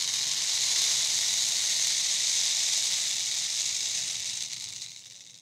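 Kayamb, the flat cane-and-seed rattle of maloya, held and rocked so its seeds roll in a steady hiss with no beat. It fades out near the end.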